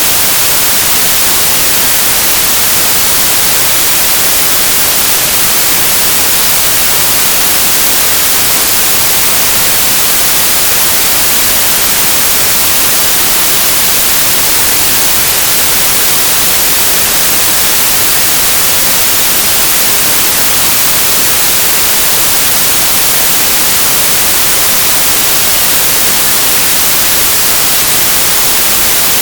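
Synthesized stereo white noise: a steady, loud, even hiss with no changes or events.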